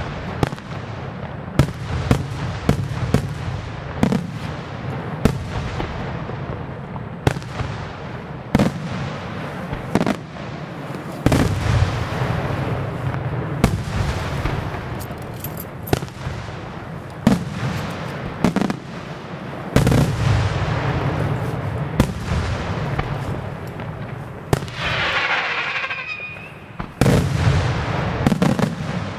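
Aerial fireworks shells bursting: irregular sharp bangs, roughly one a second, over a constant low rumble of launches and echoing reports. About three-quarters of the way through comes a brief burst of wavering whistling tones.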